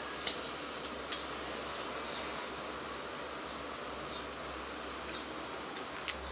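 A wooden match is struck on a matchbox with one sharp scratch about a third of a second in, and a couple of fainter scrapes follow, over a steady background hiss.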